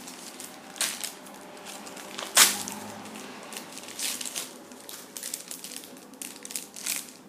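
Packaging crinkling and rustling as it is handled, in a run of irregular crackles, with one sharp loud crackle about two and a half seconds in.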